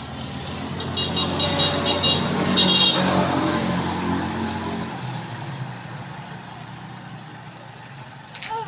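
A motor vehicle passing by, its engine growing louder to a peak about two to three seconds in, then fading away.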